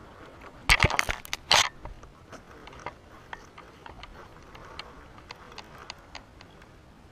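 Baitcasting reel being cranked during a retrieve: faint irregular clicking and handling noise from the reel and hands. Two brief, loud rustling scrapes come about a second in.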